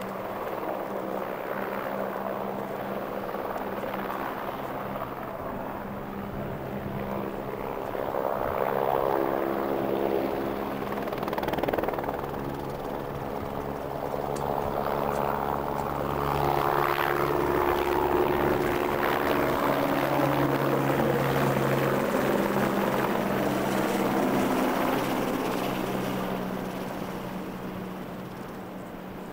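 An aircraft flying nearby: a steady engine drone that swells about eight seconds in, is loudest through the middle and second half, and fades toward the end.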